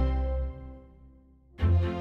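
Background music: one track fades away in the first second, there is a brief near-silent gap, and music with a heavy bass beat starts up again about one and a half seconds in.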